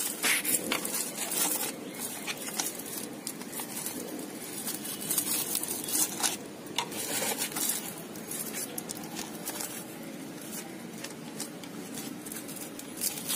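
Hands packing crumbly clay soil into a plastic flower pot and pressing small onion bulbs into holes in its side: irregular rustling and scraping with many small ticks of soil crumbs.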